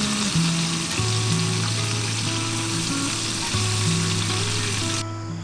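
Food frying and sizzling in a pan on a camp burner, turned with tongs; the sizzle cuts off suddenly near the end. Soft background music plays underneath.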